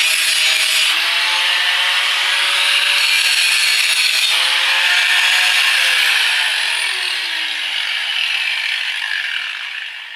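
Angle grinder grinding steel. About six seconds in its motor note starts to fall as it winds down, and the sound fades out near the end.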